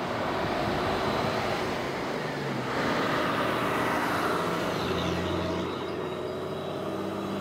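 Tata lorry's diesel engine running as the lorry drives past, the noise swelling to a peak about three seconds in and then easing off.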